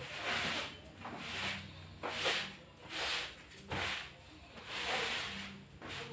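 Scrubbing strokes by hand on newly laid ceramic floor tiles, about one stroke a second, as the floor is scrubbed clean.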